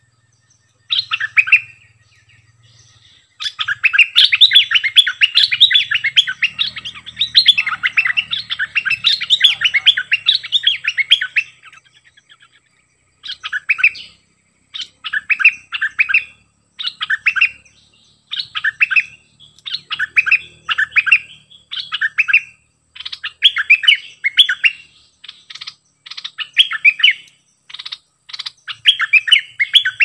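Caged decoy stripe-throated bulbul singing: a short phrase about a second in, then a long run of rapid chattering phrases, then short phrases repeated about once a second.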